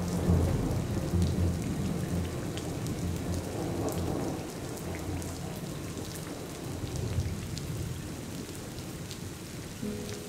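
Heavy rain falling, with scattered raindrop ticks and a low rumble of thunder that fades out over the first half.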